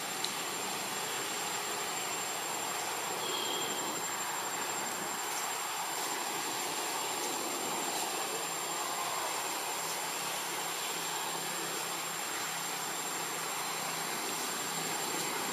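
Steady forest background hiss with a constant thin high-pitched tone running over it; no distinct animal calls stand out.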